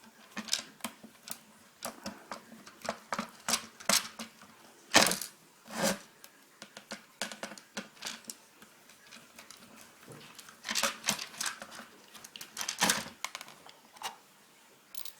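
Irregular clicks, taps and knocks of plastic casing, circuit board and small parts being handled and worked with a screwdriver while an old landline telephone is taken apart. The loudest is a sharp knock about five seconds in.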